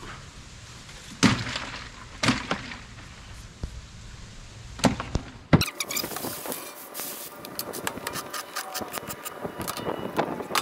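Fish-cleaning gear handled on a stainless steel table: a few separate knocks as flounder and cutting boards are set down, then from about halfway a fast, dense run of clicks and scrapes.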